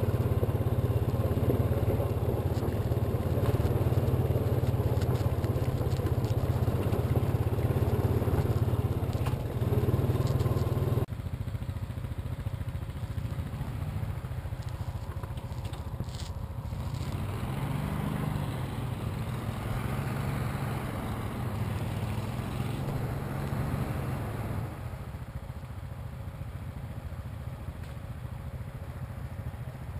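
Honda ATV engine running steadily as it rides along a gravel road, heard loud from the rider's seat. About 11 seconds in it cuts to a quieter utility vehicle engine working as the vehicle crosses a rocky creek, rising in the middle and easing off near the end.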